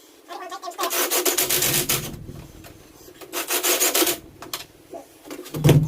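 Two harsh rasping scrapes, each lasting about a second, made of rapid ticks, followed by a sharp knock near the end.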